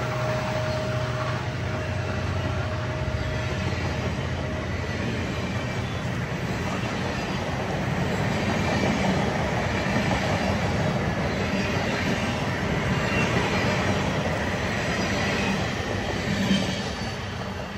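A train running past on the rails: a steady rumble of wheels and rail noise that eases off near the end.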